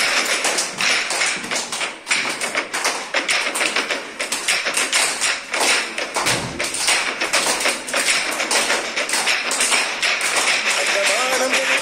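Fast percussion of the music for a Tamil dance: a dense, steady run of sharp drum strokes with little melody heard over it.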